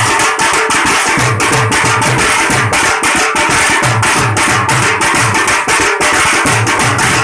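An ensemble of tasha drums struck with thin sticks, playing together in a fast, dense, steady rhythm, with a steady pitched tone sounding underneath.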